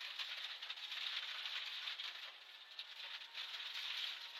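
Rally car at speed: a dense, steady rattle and hiss from the car's body and the road surface.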